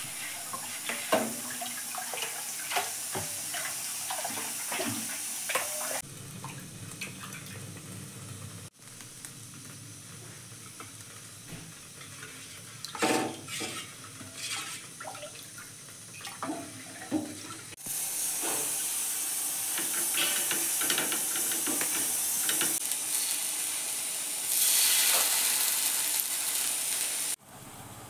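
A steel ladle stirring thin ragi and rice dosa batter in a steel bowl, with sloshing and many light clinks against the bowl. In the last third comes a steady hiss, louder near the end.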